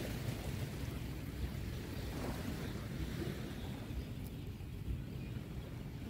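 Small waves lapping and washing on a sandy beach, a steady, even wash, with a low rumble of wind on the microphone.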